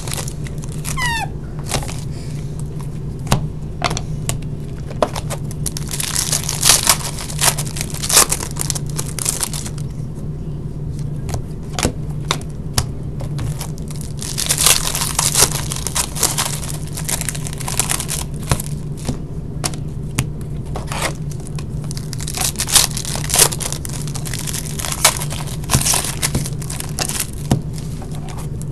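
Foil trading-card packs being torn open and their wrappers crinkled, with cards shuffled and tapped in between: short clicks and stretches of rustling and tearing, over a steady low hum.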